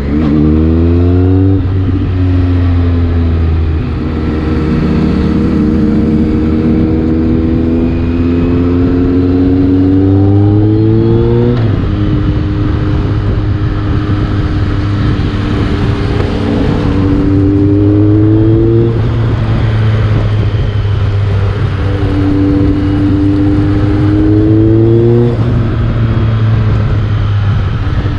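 BMW K1300R's inline-four engine through a Mivv aftermarket exhaust, heard from the rider's seat on the move: the engine note climbs slowly under throttle and drops abruptly several times at gear changes or roll-offs, over a steady low drone.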